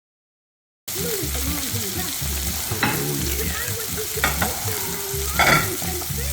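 Food sizzling as it fries in a pan, starting abruptly about a second in, with three short clatters of a cooking utensil over the sizzle.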